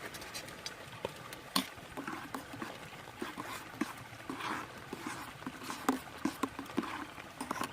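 Drops pattering on a tarp in scattered, irregular taps over the steady rush of a babbling brook.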